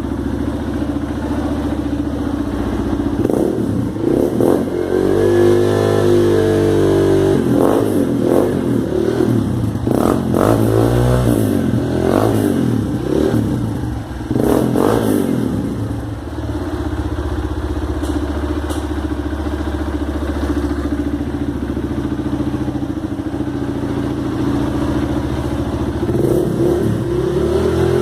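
Honda 150 Mix motorcycle's single-cylinder engine through a new aftermarket exhaust, revved: one long rev about five seconds in, then several quick throttle blips, then a steady idle before it revs up again near the end.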